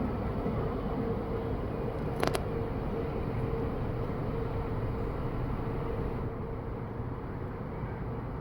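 Low, steady rumble of tugboat diesel engines with a constant hum, and a single sharp click about two seconds in.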